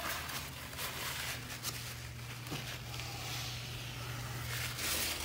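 Faint rubbing of a gloved hand wiping freshly applied sealant into a ceiling crack along the crown molding, over a steady low hum, with a brief rise in hiss near the end.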